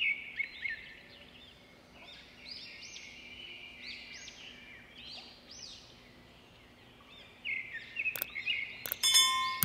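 Small birds chirping and singing in quick repeated calls throughout. Near the end come two sharp clicks and a bright ding, as from a subscribe-button sound effect.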